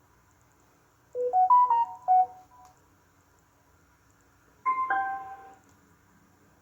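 Bluetooth speaker's electronic prompt tones: a quick rising run of beeps about a second in, then a shorter chime of a few notes sounded together near the five-second mark.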